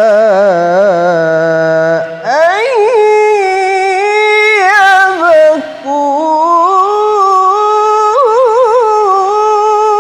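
Man reciting the Quran in melodic tilawah style, holding long ornamented notes with quick wavering trills and sweeping up in pitch about two seconds in, pausing briefly twice. The voice is affected by a cough and cold.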